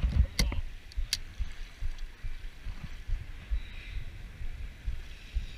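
Lake water lapping and washing against a concrete pier, with wind buffeting the microphone in uneven low thumps. A few sharp clicks come in the first second or so.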